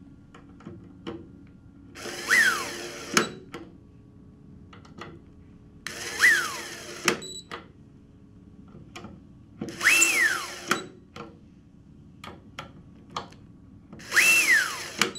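Nitto Kohki brushless electric screwdriver driving four small machine screws one after another. Each run is a motor whine that falls in pitch as the screw runs down and seats, ending in a sharp click. The first two runs peak lower and drop at once; the last two hold a higher pitch before falling, a different speed setting for the second pair of screws.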